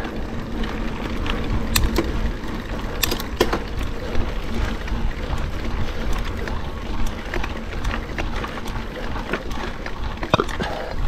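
Mountain bike being ridden on a dirt trail, heard from a chest-mounted camera: a steady rolling rumble with scattered clicks and rattles from the bike.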